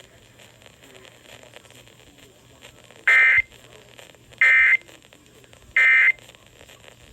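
Emergency Alert System end-of-message signal: three short, identical SAME digital data bursts about a second and a quarter apart, starting about three seconds in after a faint hiss. They mark the end of the alert.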